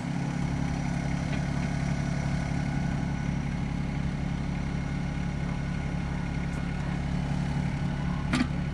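Yanmar 324 compact tractor's diesel engine idling steadily, with a single short knock near the end.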